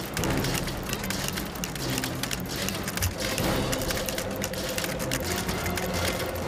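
A stapler being pressed, then fast typing on a computer keyboard: a dense run of mechanical clicks and clacks.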